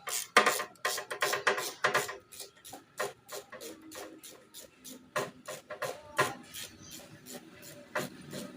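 Background music mixed with a run of sharp, uneven clicks and taps from hand tools as the snail horn is fitted to the scooter. The clicks come fastest in the first couple of seconds and thin out later.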